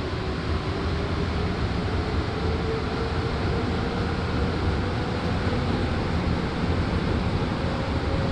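Montreal Metro MR-63 rubber-tyred subway train running through a tunnel, heard from inside the car: a steady rush of running noise with a motor whine that rises slowly in pitch as the train gathers speed.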